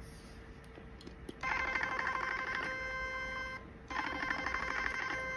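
Portable Ultraformer 7D HIFU handpiece firing its ultrasound shots, giving a rapid pulsing electronic beep that starts about a second and a half in, breaks off briefly, and starts again about four seconds in.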